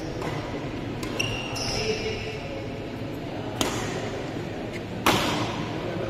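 Badminton play: several sharp racket strikes on a shuttlecock, irregularly spaced, the loudest about five seconds in. A brief squeak comes at about a second in.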